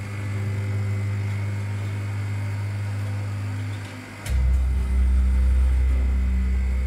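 Steady low hum of workshop machinery. About four seconds in there is a click, and the hum drops lower in pitch and grows louder.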